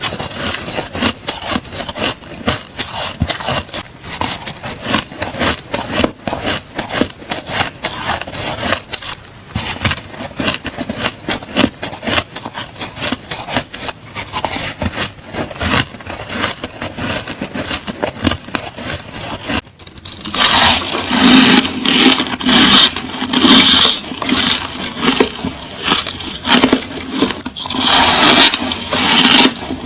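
Ice being bitten and chewed close to the microphone: rapid, crisp crunching and cracking, many snaps a second. After a brief break about two-thirds of the way in, the crunching comes back louder and sharper.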